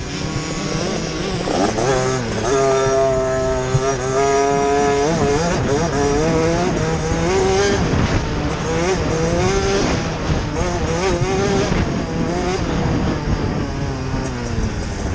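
Motocross bike's engine at race speed, revving hard and changing gear: its pitch climbs, holds briefly and drops again several times as the throttle opens and closes.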